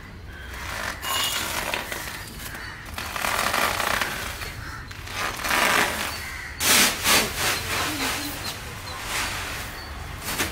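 Rice grains pouring out of stitched woven plastic sacks onto a concrete floor as the sacks are ripped open, in a series of rushing, rustling bursts with the plastic weave crinkling. The loudest burst comes about two-thirds of the way in, and a low steady hum runs underneath.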